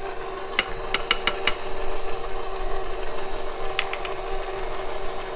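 Electric stand mixer running steadily as it mixes the dry dough ingredients. Sharp light clinks come over it: a quick run of five about half a second to a second and a half in, then three more near four seconds in.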